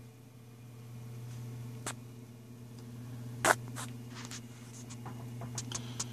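Steady low hum with a scattered run of small sharp clicks and taps. The loudest click comes about three and a half seconds in, and several quicker ones follow near the end.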